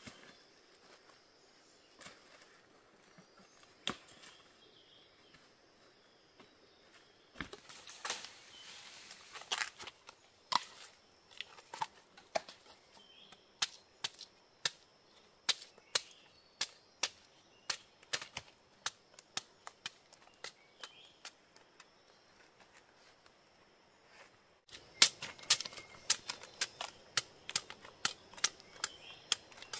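A long-handled knife chopping at fresh bamboo shoots in short, sharp strikes to hack off the husks, about one or two chops a second and quickening near the end. Near the start a few seconds of husk and leaf rustling comes between scattered knocks.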